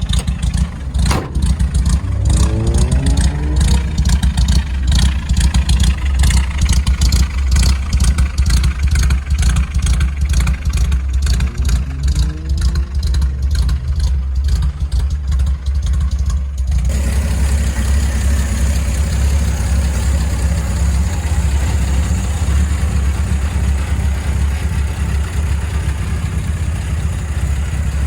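1953 Chevrolet 3100 pickup's straight-six engine running through dual glasspack exhausts, idling with a short rev a couple of seconds in and another about twelve seconds in. About seventeen seconds in the sound changes abruptly to a steady idle with more hiss.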